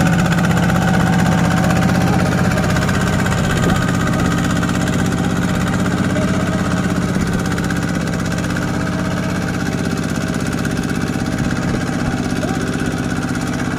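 Single-cylinder diesel engine of a two-wheel walking tractor running steadily with a fast, even chug, its tractor and rice trailer bogged in deep mud.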